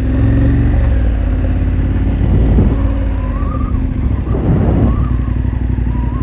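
KTM 1290 Super Adventure R's V-twin engine, fitted with an aftermarket Akrapovič exhaust, running at low town speed. The engine note dips and picks up a couple of times with the throttle.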